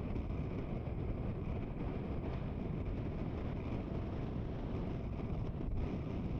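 Wind buffeting the microphone over a steady wash of ocean surf, a continuous low rumble with no distinct events.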